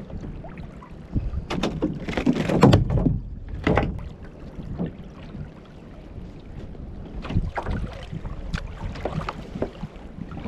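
Water slapping against a fishing kayak's hull, with clusters of sharp knocks and clatter, the loudest about two and a half seconds in and more around seven to ten seconds in.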